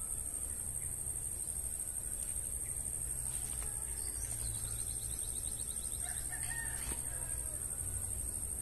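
A rooster crowing faintly about six seconds in, just after a quick run of high chirps, over a steady high-pitched drone.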